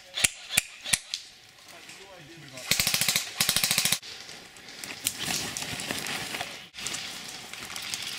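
Airsoft guns firing: a few single shots in the first second, then two rapid full-auto bursts of about half a second each near the middle.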